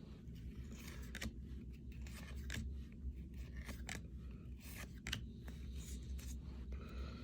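Trading cards being handled and slid against one another: scattered short scrapes and flicks of card stock, over a steady low hum.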